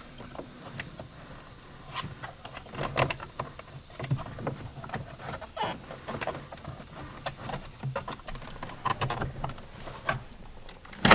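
Irregular small clicks, taps and rattles of plastic and metal parts being handled and pried at while the ignition switch is worked out of a car's steering column, with one sharp knock at the very end.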